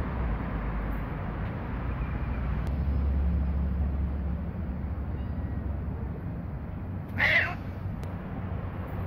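A cat meows once, briefly, about seven seconds in, over a steady low rumble of outdoor background noise.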